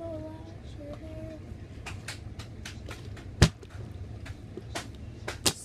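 Plastic water bottle handled with a few light clicks, and one sharp thud about three and a half seconds in as it hits the floor.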